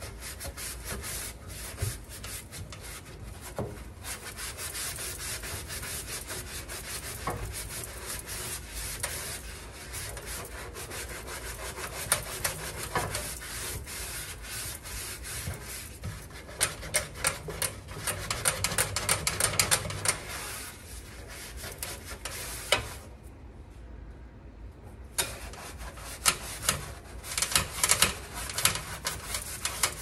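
Scrubbing pad rubbing back and forth against the metal interior of a toaster oven in rapid strokes. The scrubbing stops for a couple of seconds about three quarters of the way through, then starts again.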